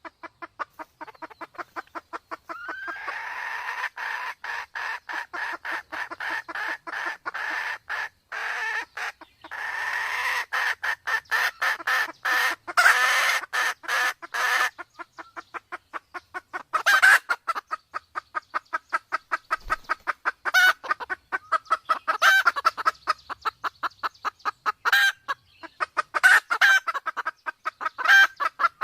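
Red junglefowl of Sumatra, hen and cock together, with the hen calling as a hen in heat: a fast, unbroken run of clucks, several a second. From about halfway, louder, sharper calls break in every second or two.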